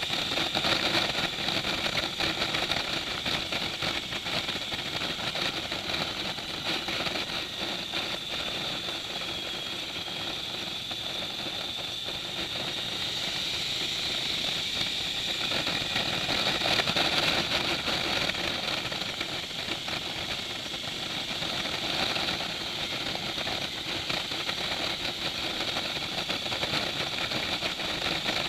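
Motorcycle engine running at road speed with steady wind and road noise, heard from a camera mounted on the bike; the loudness swells and eases a little now and then.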